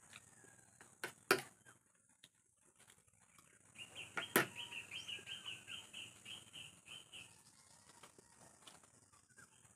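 A bird calling a fast run of short, repeated high chirps, about four a second, for roughly three seconds starting about four seconds in, over a steady high hiss. A few sharp clinks of a spoon on a plate come before it, the loudest just as the chirping starts.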